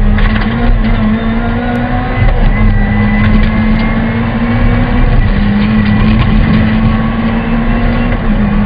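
Honda Civic VTi rally car's four-cylinder engine running hard at high revs, heard loud inside the cabin, with tyre and road rumble underneath. The engine note holds steady and dips briefly three times, about every three seconds.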